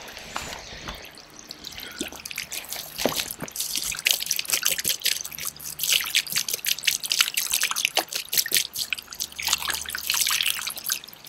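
Water from a garden hose splashing and trickling over the plastic-welded patch on a polyethylene kayak hull, in a leak test of the repair. The splashing patter starts in earnest about two seconds in.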